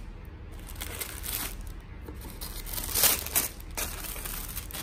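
Tissue paper crinkling and rustling as a hand pulls it apart inside a shoebox, in irregular crackles with a louder rustle about three seconds in.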